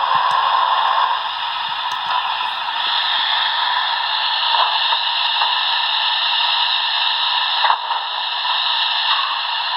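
Steam-hiss sound effect from a Broadway Limited HO-scale Challenger model locomotive's onboard sound system, played through its small speaker: a loud, steady hiss of the kind made by a steam locomotive's blowdown valve. The hiss changes colour about three seconds in and breaks briefly with a click near the end.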